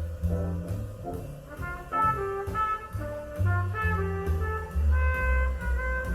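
Jazz with horns over a strong moving bass line, played from vinyl through Sound Lab G7-5C electrostatic loudspeakers.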